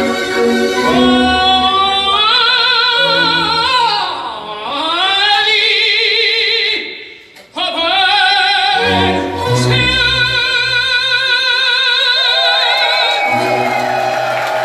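Operatic solo voice singing with wide vibrato and long held high notes over low accompaniment. It breaks off briefly about seven seconds in, then rises into a long final held note.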